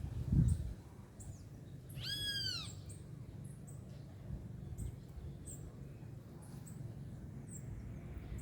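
Birds calling: short, high chirps repeat throughout, with one louder, arched call that rises and falls about two seconds in.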